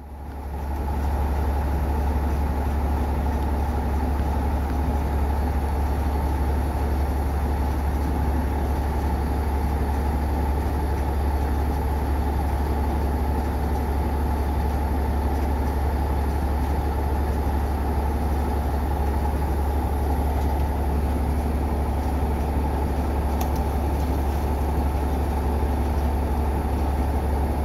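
Well-servicing rig's diesel engine speeding up about a second in, then running steadily at a higher speed with a deep rumble.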